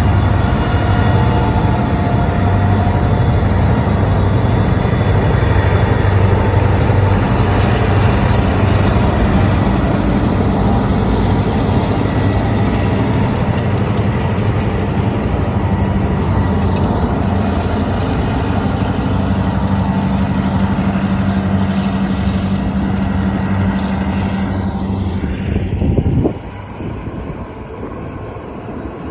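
Diesel freight locomotives passing, their engines running with a steady low drone. About 26 seconds in the last locomotive goes by and the sound drops suddenly to the quieter rumble of covered hopper cars rolling past.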